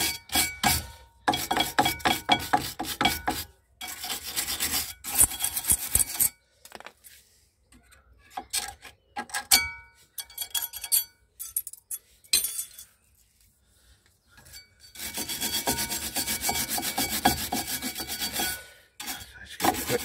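Stiff wire brush scrubbing rust and old deposits off a rear brake caliper bracket in rapid rasping strokes, to clean it for new pads. The brushing stops for several seconds, with a few light metal clinks of tools, then starts again for a second spell near the end.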